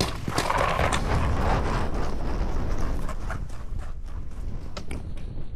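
Strong wind buffeting the microphone in a steady low rumble, with footsteps on the ground ticking through it.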